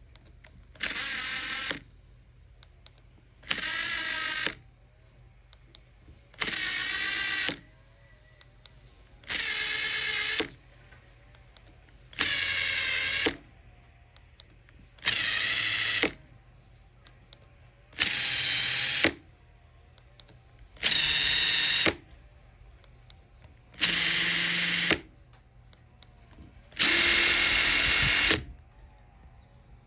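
Makita TP141D 18 V cordless 4-mode impact driver running with no load in ten short bursts of about a second each, spaced a few seconds apart. The motor whine gets higher and louder from one burst to the next, and the last burst is the loudest.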